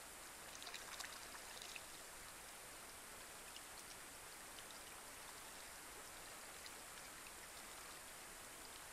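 Light rain falling on a pond: a faint steady hiss with scattered drop ticks, and a short flurry of louder drips about a second in.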